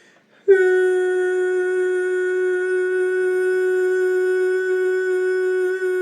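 A woman's voice toning one long, steady note in a sound-healing practice, starting about half a second in and held without a break.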